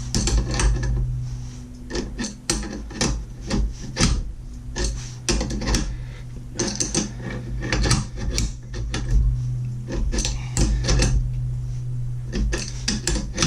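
Irregular metallic clicking and scraping from an internal bearing puller being tightened inside an exhaust baffle, spreading its collet until it grips, over a steady low hum.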